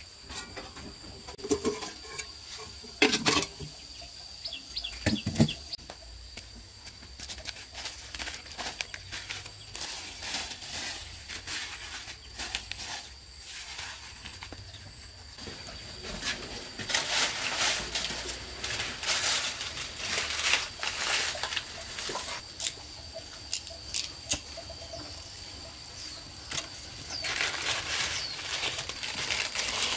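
Dry corn husks rustling and crackling as they are gathered and handled, denser in the second half. Under it runs a steady high-pitched insect drone.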